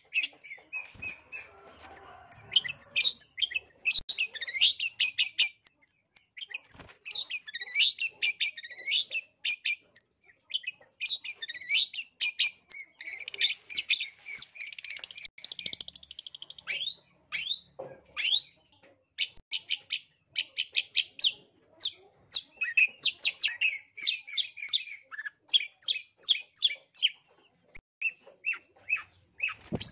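Long-tailed shrike (cendet) singing its aggressive 'narung' song: fast runs of short, scratchy chattering notes, with only brief pauses.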